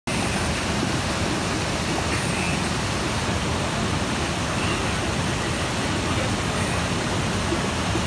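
Small waterfall pouring over boulders into a rock pool: a steady rush of falling water.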